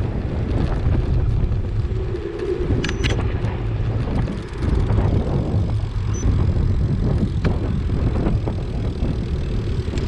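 Wind buffeting the microphone of a handlebar camera on a moving bicycle: a loud, low rumble that rises and falls.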